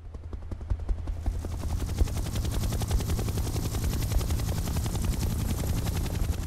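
Helicopter rotor blades chopping in a rapid, even beat with a heavy low throb, fading in at the start and then holding steady.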